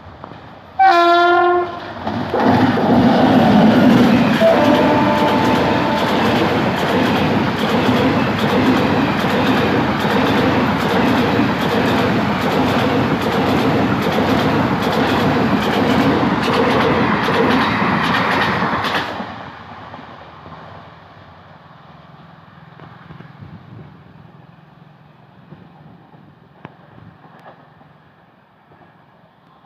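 An Indian Railways electric locomotive blows its horn once, a loud blast about a second long, then the locomotive and its express passenger coaches pass at speed with a loud rushing clatter of wheels on the rails. After about seventeen seconds the clatter drops away sharply and fades to a low rumble as the train recedes.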